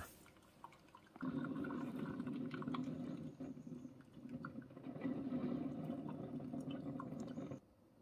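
Braun MultiServe KF9150 coffee maker in its automatic descaling cycle, sending descaling solution into its glass carafe: a steady splashing stream that starts about a second in and cuts off suddenly near the end, as the machine stops between its brew pulses.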